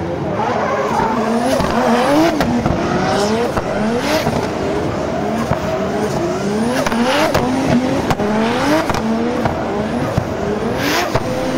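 Drift cars' engines revving hard, their pitch climbing again and again roughly once a second, over a noisy bed of tyre squeal and skidding.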